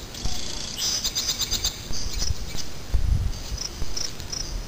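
A cricket chirping: short high chirps repeating evenly, two or three a second. A low rumble comes about three seconds in.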